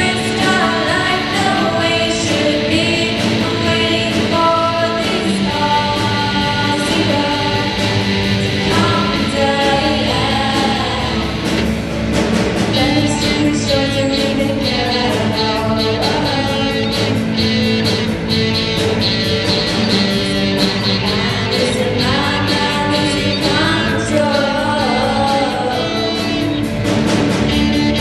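Live rock band playing, a singer over guitars, bass and drums, with the drumming growing busier about twelve seconds in.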